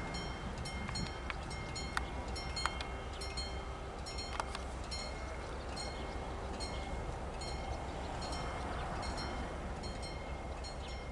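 Level-crossing warning bell ringing over and over in quick, even strokes while the crossing barrier rises, with a steady low rumble underneath and a few sharp clicks in the first half.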